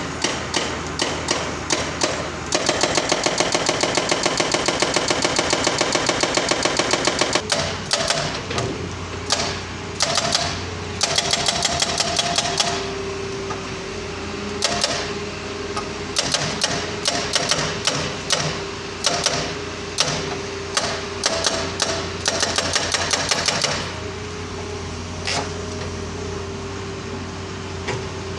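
Doosan hydraulic breaker on an excavator hammering a pile: rapid blows in runs, one long unbroken run early on, then shorter bursts with pauses, over the machine's steady running hum. The hammering stops a few seconds before the end, leaving the engine running.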